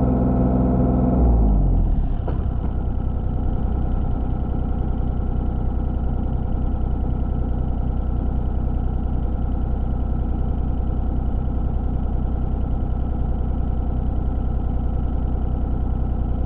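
Skid steer engine running at high revs, then dropping to a steady idle about a second and a half in.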